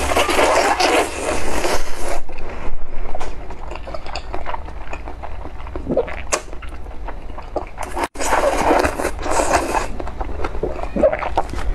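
A person slurping thick potato noodles with spicy broth, in two long slurps of about two seconds each, the second about eight seconds in, with short wet chewing clicks between them.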